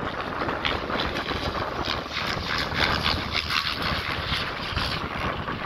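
Large radio-controlled helicopter, an XL Power Ego Drift, flying a display: its rotor blades whoosh and chop in rapid, uneven pulses as it manoeuvres. Wind noise on the microphone runs underneath.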